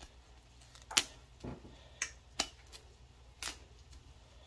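Fresh broccoli being broken into florets by hand over a stainless steel pot: about six short, crisp snaps spread over a few seconds, the loudest about a second in.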